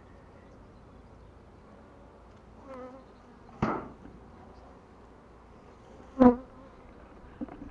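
Honeybees buzzing steadily around open beehives, with two sharp knocks as the wooden hive parts are handled, about three and a half and six seconds in, the second the louder.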